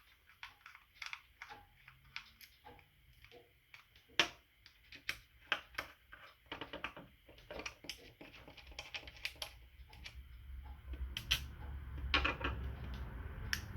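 Irregular small clicks and taps of a utility knife being handled and taken apart to get at the blade, metal and plastic parts knocking together. A few sharper clicks stand out, and a low rumble of handling builds near the end.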